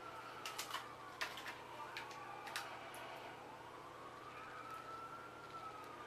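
Faint siren wailing slowly up and down, with a few small sharp clicks in the first three seconds.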